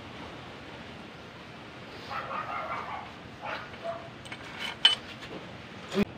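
Sharp metallic clinks of steel washers and head bolts being dropped into the bolt holes of a Nissan GA16 cylinder head, the loudest with a short ringing tone just under five seconds in and another near the end. A brief animal call sounds in the background about two seconds in.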